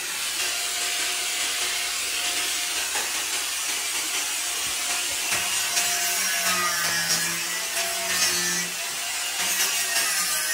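Corded electric angle grinder with an abrasive cut-off disc cutting steel, a steady high grinding hiss.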